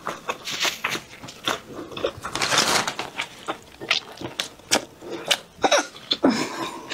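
Close-miked wet chewing and mouth smacks while eating braised meat, with squelching from the sauce-soaked meat in a plastic-gloved hand; a string of short, irregular clicks and smacks.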